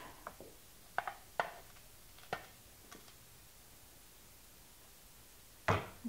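A few light, sharp taps and clicks of bootmaking tools and tacks against a wooden crimp board during vamp crimping, spread over the first three seconds, then a louder knock near the end.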